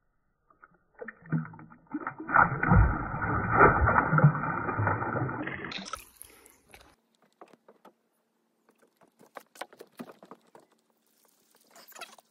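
Pond water sloshing and splashing as a released largemouth bass kicks free of a hand and swims off. It is loud and muffled for a few seconds, then brightens into a sharper splash about halfway through. Faint scattered clicks follow.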